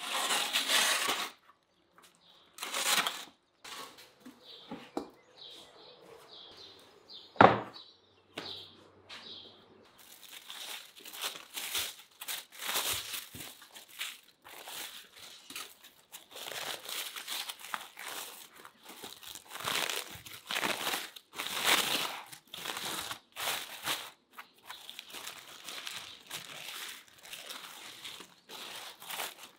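A metal roasting pan scraping on the oven's brick floor as it is pulled out, with a sharp knock a few seconds later. Then aluminium foil crinkling and rustling in quick bursts as it is peeled open on the tray.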